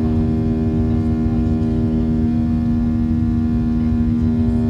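Steady cabin noise inside a Boeing 737-700 airliner: a low rumble with a constant multi-tone hum over it, unchanging throughout.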